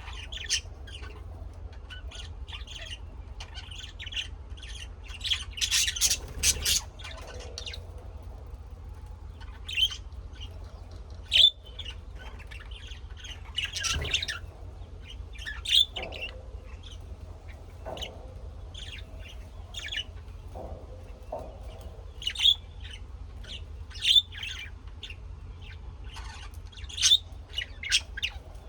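Birds chirping and squawking in short, scattered calls, several loud squawks among softer chirps, over a steady low hum.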